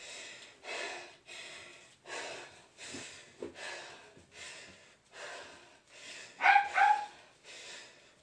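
A person panting heavily after a set of burpees: rapid, hard breaths about one and a half a second, with one louder voiced gasp about six and a half seconds in.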